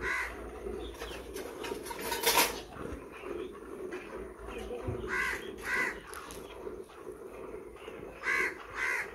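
Crows cawing in short calls that come in pairs, twice in the second half, with hissing squirts of milk from hand-milking into a plastic pail. The loudest squirt comes about two seconds in.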